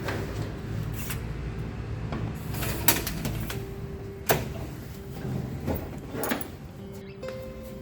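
A few sharp knocks and clacks, as of a door and things being handled, over a low steady hum.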